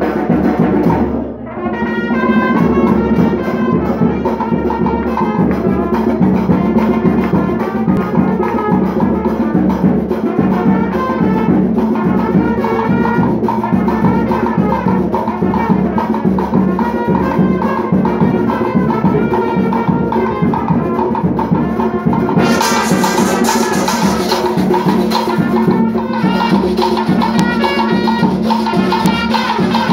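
Chirimía band playing dance music: brass horns carrying the tune over a steady drum beat. Cymbals come in louder for a few seconds past the middle.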